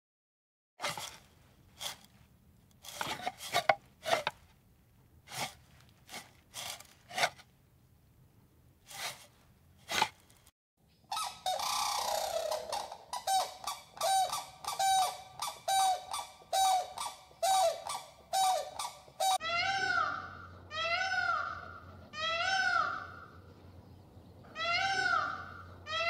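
Zoo birds calling in three spells: first scattered sharp clicks and short calls, then from about eleven seconds in rapid short honking calls over a hiss, from cranes. From about twenty seconds in, a green peafowl gives a loud call about once a second, each call rising and falling in pitch.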